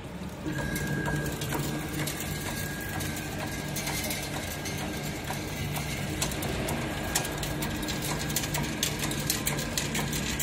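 Chain link fence weaving machine starting up and running: a low motor hum with a thin steady whine, and clicking and clattering from the mechanism that grows busier towards the end.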